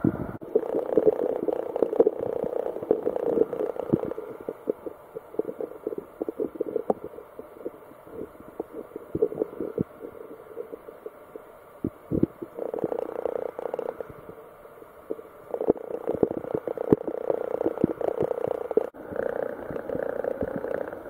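Muffled underwater sound picked up by a submerged waterproof camera: many irregular knocks and clicks over a dull wash of moving water, changing abruptly a few times.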